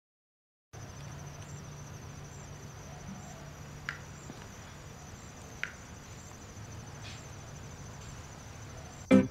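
Quiet room tone with a faint, steady high-pitched trill and a low hum, broken by two light clicks as a knife cuts through a block of agar jelly on a plate. Music starts right at the end.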